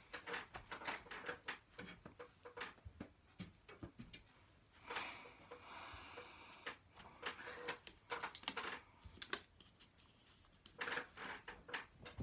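Faint handling noise close to a phone's microphone: scattered small clicks and taps, with a longer rustle of sleeves and hands about five seconds in.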